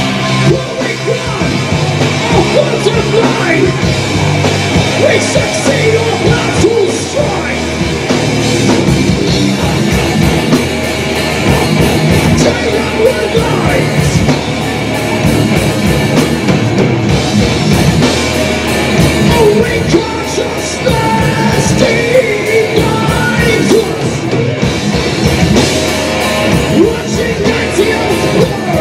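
Live metal band playing loudly: electric guitars, bass guitar and drums, with a singer's vocals over them.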